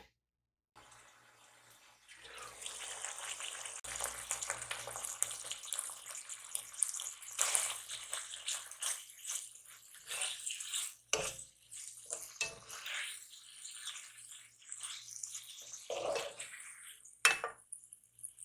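Water running from a kitchen tap into a sink for several seconds, then stopping, followed by scattered clinks and knocks of dishes and utensils.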